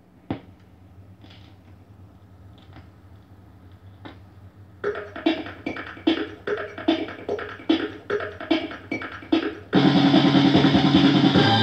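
Philips NG 1151 portable record player's stylus set down on a spinning 45 rpm single with one sharp click, followed by a low hum and faint clicks about every second and a half in the lead-in groove. About five seconds in, the record's drum intro starts with steady, evenly spaced beats, and near the end the full band with guitar comes in at once, much louder.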